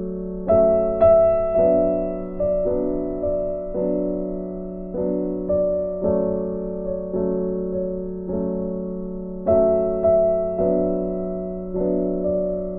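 Soft background piano music: a slow, even pattern of struck notes and chords, each fading away before the next.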